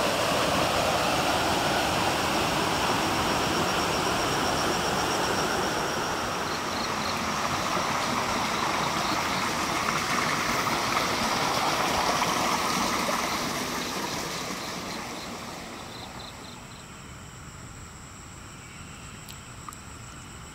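Steady rushing of flowing water, loud for most of the time, then fading away over a few seconds about two-thirds through. Faint high-pitched chirps and a thin steady high tone are left at the end.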